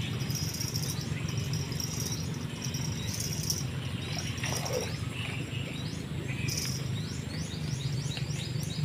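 Birds chirping repeatedly over a steady low rushing background; near the end comes a quick series of short rising chirps, about five a second.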